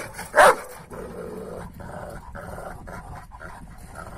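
A large dog barks once, loud and sharp, about half a second in, then pants rapidly at about three breaths a second.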